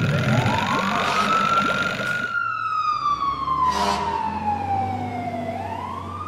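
A wailing siren: its pitch climbs over about two seconds, sinks slowly, then climbs again near the end.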